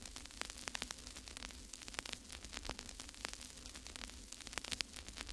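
Faint crackling static: irregular sharp clicks over a steady hiss and a low hum.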